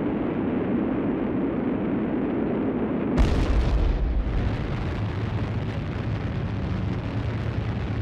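Volcanic eruption: a continuous deep rumble of lava fountaining, broken about three seconds in by a sudden explosive blast that dies away over about a second into the rumble again.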